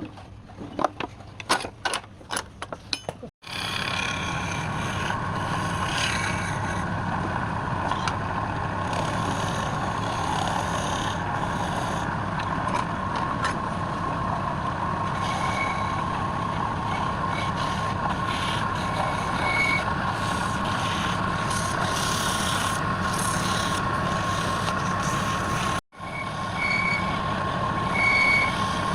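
A few sharp knocks, then a woodturning lathe running steadily with a high, even whine over a continuous noisy hiss.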